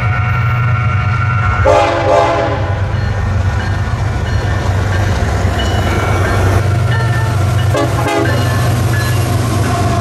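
Train horns sounding at a railroad crossing: a held chord that stops about two seconds in, followed at once by a shorter, lower chord. Under them runs the steady low rumble of approaching Union Pacific diesel freight locomotives (an SD70ACe and a C44ACCTE). A brief horn-like sound comes near the end.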